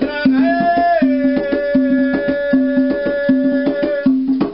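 Rawhide-headed, rope-laced hand drum played with both hands in a steady rhythm, a low open tone about every three-quarters of a second with sharp slaps between. A man's voice sings over it, holding one long note for about three seconds.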